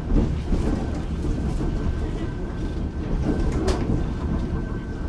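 Ueda Kotsu round-window electric railcar Moha 5253 running between stations: a steady low rumble of the car on the track, with a thin steady tone over it and one sharp click about two-thirds of the way in.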